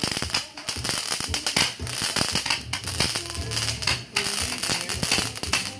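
Ground firework spraying a jet of sparks: a continuous hiss with many sharp crackles and pops.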